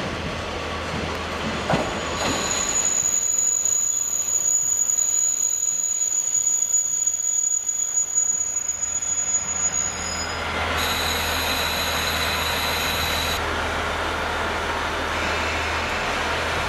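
KiHa 40-series diesel railcar braking into a station: a high steady brake squeal runs from about two seconds in to about ten seconds, over the rumble of the train, and a second shorter squeal follows a moment later. Once the train has stopped, its diesel engine idles with a steady low hum.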